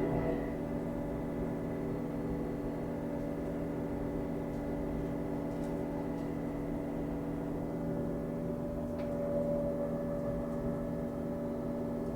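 Komatsu PC45 mini-excavator's diesel engine running steadily, with a few faint ticks about nine seconds in.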